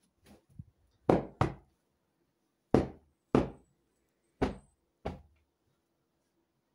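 Hands slapping a pillow six times, in three pairs of sharp thuds, beating and fluffing it to air it out. There is a faint fabric rustle before the first slap.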